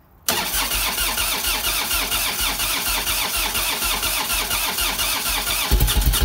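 Harley-Davidson Evolution V-twin turned over by its electric starter for about five seconds, with the choke on, while the empty float chamber of a newly fitted Mikuni carburettor fills with petrol. Near the end the engine catches and fires in loud, uneven low thumps.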